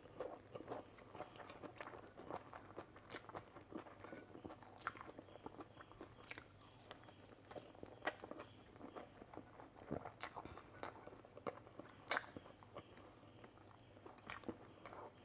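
A person eating, quietly chewing and biting, with scattered short sharp clicks of the mouth at irregular intervals.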